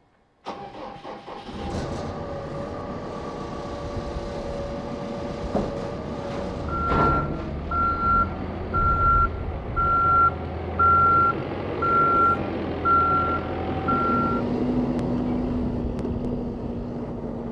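Caterpillar backhoe loader's diesel engine starting up about half a second in, then running steadily. From about seven seconds in, its reversing alarm beeps about eight times, roughly once a second, as the machine backs up, with a single knock just as the beeping begins.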